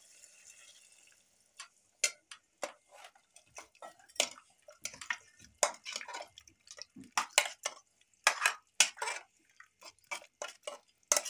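Water pouring into a pressure cooker for about a second, then a metal ladle stirring the watery curry gravy, clinking and scraping repeatedly against the inside of the cooker.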